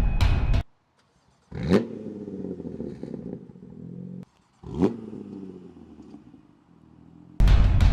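Two quick free-revs of a 2019 BMW M2 Competition's S55 twin-turbo straight-six through a Valvetronic equal-length valved catback exhaust. Each rev climbs sharply in pitch and then falls away. Loud music cuts off in the first second and comes back in near the end.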